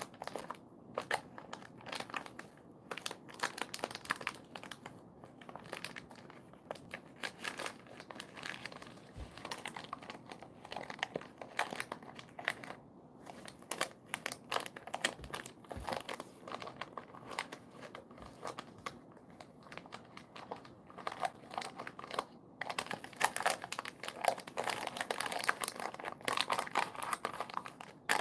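A Jindo-mix dog licking and chewing at a torn plastic snack pouch, the wrapper crinkling and crackling in quick, irregular rustles that grow denser and louder near the end.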